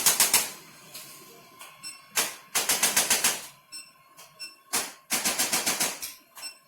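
Rapid percussive tapping on the body, in three bursts of about a second each at roughly eight sharp taps a second, with a few faint ticks in between.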